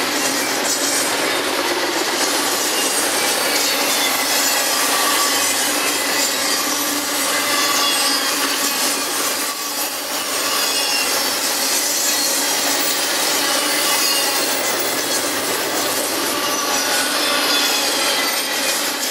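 Double-stack intermodal container freight train rolling past: steady noise of steel wheels running on the rails, with thin high tones from the wheels drifting in and out, and a brief dip in level about halfway through.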